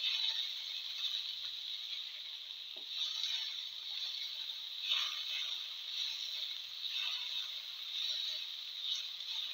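Tomato slices, garlic and cumin seeds sizzling in hot oil in a frying pan while a slotted spatula stirs them, scraping across the pan with a louder stroke about every two seconds.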